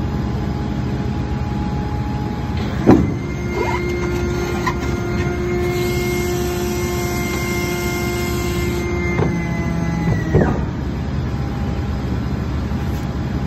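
A Piper PA46's nose landing gear extends under hydraulic power. A click about three seconds in is followed by a steady motor-driven pump whine lasting about seven seconds, which winds down and stops as the gear reaches full extension. A steady loud noise runs underneath throughout.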